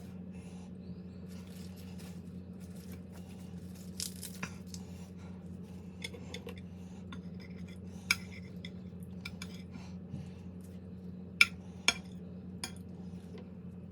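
Eating utensils clinking and tapping against dishes during a meal: scattered sharp clinks, the loudest two close together near the end, over a steady low hum.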